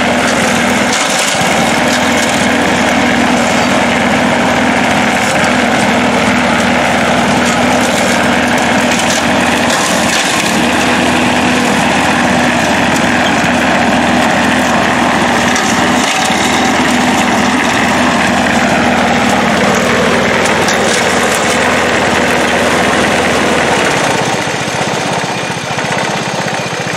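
Wheel Horse garden tractor and the push-mower engine of a homemade front-mounted brush hog, both running steadily under load as the blade cuts through saplings and brush. The engine noise eases slightly near the end.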